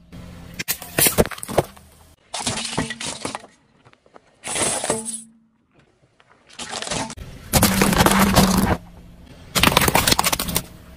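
A car tyre crushing a run of objects in separate short bursts of cracking and crunching: dry instant noodles snapping inside their packets, then a plastic toy centipede cracking, then water balloons bursting near the end.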